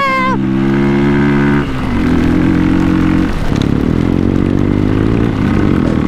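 Motorcycle engine running under throttle, holding a steady pitch, dropping off twice, then climbing steadily in pitch before easing off near the end.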